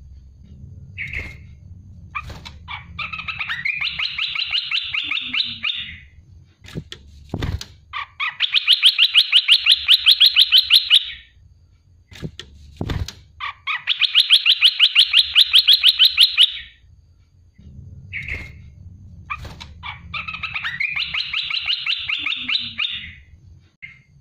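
Olive-winged bulbul singing in four bouts of fast, sharply repeated notes, each lasting about three seconds, with single short calls between them. A couple of low thumps come between the bouts.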